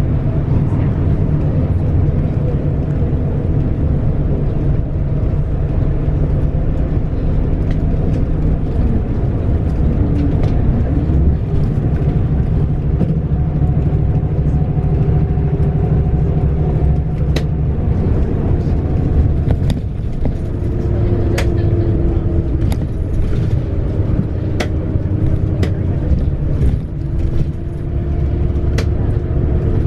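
Bus interior on the move: steady engine and road rumble, with the engine's pitch stepping up and down as it changes speed. A scattering of sharp clicks and knocks comes in the second half.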